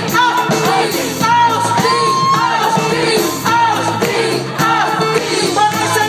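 Live band music, with electric guitar and drum kit, and a vocalist singing over it through the PA.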